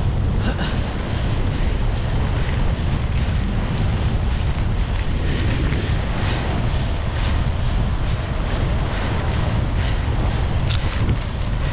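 Wind buffeting the microphone: a steady, loud low rumble, with two sharp clicks close together near the end.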